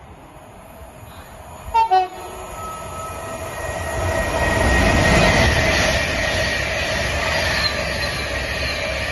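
Train sounding its two-tone horn just before two seconds in: two short blasts, a higher note then a lower one. The train's running noise then builds, is loudest about five seconds in, and goes on as a steady rumble.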